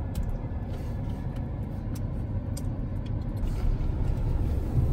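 Steady low rumble of a pickup truck driving on a gravel road, heard from inside the cab, with a few faint light clicks.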